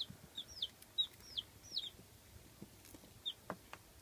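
Days-old baby chicks peeping: short, high, falling chirps, about half a dozen in the first two seconds and one more later. A couple of light ticks are heard after that.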